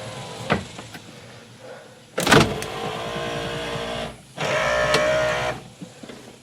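Electric window motor of a 1964 Ford Thunderbird running twice, each run a steady whine of a second or two: the first starts with a sudden clunk about two seconds in, the second follows after a short pause. A faint click comes about half a second in.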